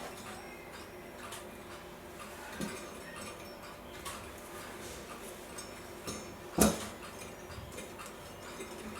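Small metal clicks and taps of brass clock parts being handled and fitted together, irregular rather than a steady tick, with one louder knock about six and a half seconds in.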